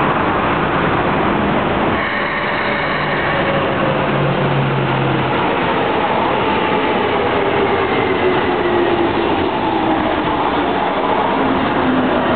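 Red Keikyu electric train running out of the tunnel and along the platform, wheels on the rails with a motor whine that falls steadily in pitch as the train slows into the station.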